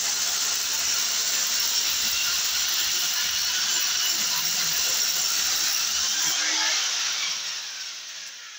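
Steady mechanical whirring noise that fades away over the last second or two.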